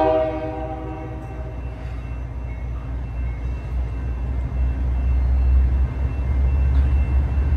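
The last chord of a Union Pacific freight train's diesel locomotive horn fades out in the first second. Then the low rumble of the approaching locomotives builds steadily, loudest a few seconds before the end.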